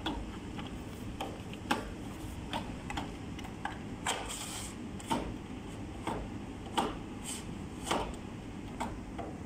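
Ericsson rectifier module, a metal-cased power supply unit, being slid by hand into its rack shelf slot: irregular clicks and knocks of metal on metal, with a short scraping slide about four seconds in.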